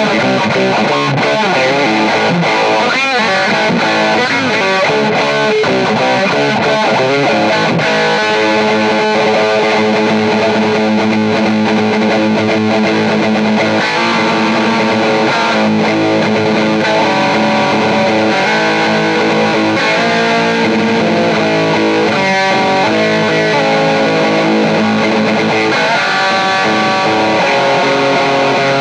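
Background rock music led by distorted electric guitar, turning to long held chords about eight seconds in.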